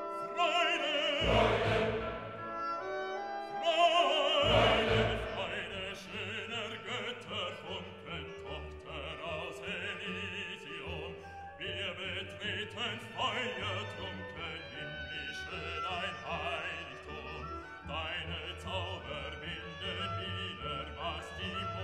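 Music: a singing voice with wide vibrato over orchestral accompaniment, with heavy low beats entering about a second in and a steady low pulse after that.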